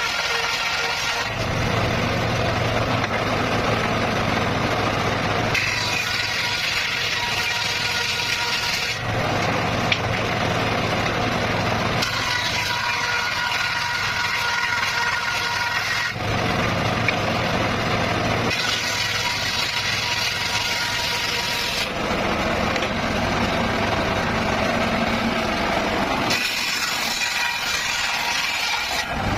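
Circular saw cutting petung bamboo, running without a break. Its sound switches every three to four seconds between a low hum and a harsher, brighter rasp as cut after cut goes through the bamboo.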